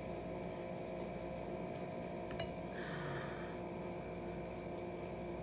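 Quiet room tone: a steady hum with several faint steady tones, broken by a single sharp click about two and a half seconds in and a brief soft hiss just after.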